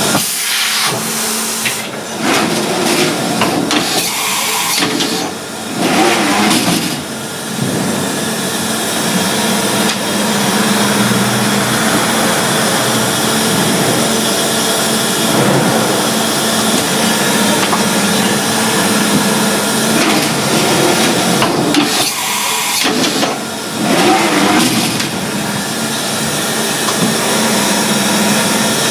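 Mori Seiki SH-40 horizontal machining centre running: a loud, continuous mechanical noise with a steady hum beneath it. The sound shifts briefly several times, about two seconds in, twice around five to seven seconds, and again around twenty-two to twenty-four seconds.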